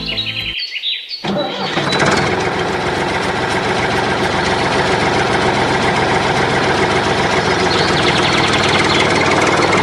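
A small engine starting about a second in, then running steadily with a fast even beat. Bird chirps are heard at the start.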